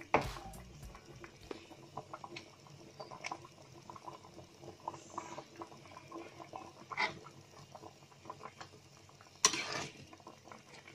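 Fish-head curry in coconut-milk broth simmering in a wok, with many small bubbling pops. A metal spatula scrapes through the pan near the end as the curry is stirred.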